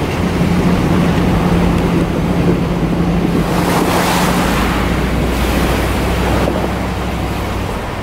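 A four-wheel-drive vehicle's engine running steadily as it fords a river, with water rushing and splashing against the front. The splashing is loudest from about three to five seconds in, as the vehicle pushes up out of the water onto the gravel bank, and the engine note shifts lower about halfway through.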